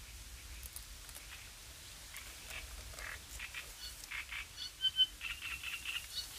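Small animals calling from a reed bed: scattered short chattering calls, with a brief high whistled note about five seconds in, over a low rumble of light breeze on the microphone.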